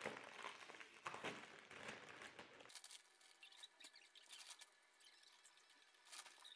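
Faint crinkling and tearing of a foil snack bag being pulled open. About two and a half seconds in it drops suddenly to fainter, scattered rustles and crackles.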